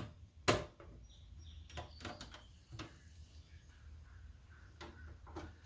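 Sheet-metal drive cage being fitted back into a desktop PC case, its tabs seated into slots: one sharp click about half a second in, then several lighter clicks, knocks and faint scraping.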